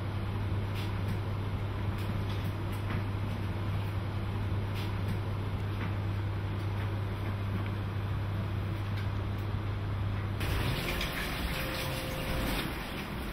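Steady hiss with a low hum; about ten seconds in the hum stops and the hiss turns brighter.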